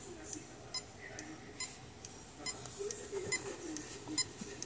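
A portable USB magnetic hard drive clicking steadily, one sharp click a little under every second with fainter ticks between. This constant clicking is the kind of noise that warns the drive may be failing, so its data should be backed up.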